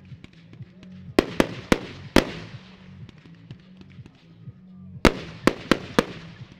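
Aerial firework shells bursting: two quick volleys of about four sharp bangs each, the first about a second in and the second about five seconds in, each bang trailing off in an echo.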